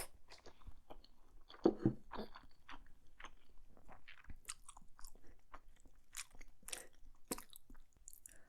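Chewing a mouthful of black bean noodles, heard as a steady run of short, irregular mouth clicks, with two louder knocks about two seconds in.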